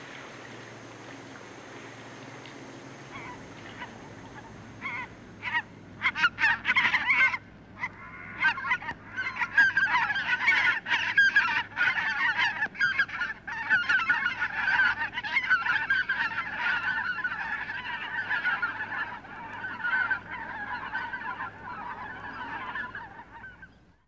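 A flock of waterfowl calling. A few calls start about four seconds in, build to a dense chorus of many overlapping calls, then stop abruptly just before the end.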